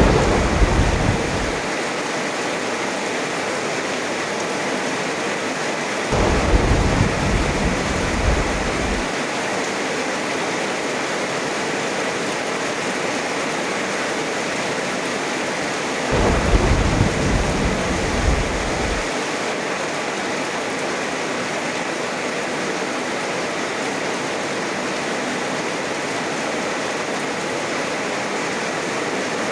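Heavy rain falling steadily, with deep rolls of thunder: one fading out at the start, then two more about six and sixteen seconds in, each lasting around three seconds.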